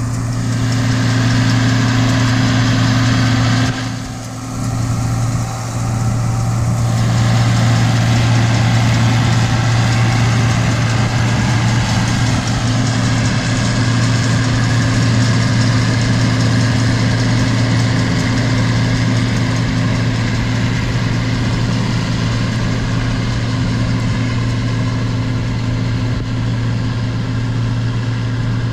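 Tractor engine running steadily while pulling a round baler, with a brief drop in level about four seconds in.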